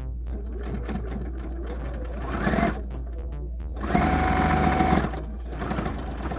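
Sewing machine stitching in two short runs: a brief one about two and a half seconds in, then a longer one of about a second near the middle.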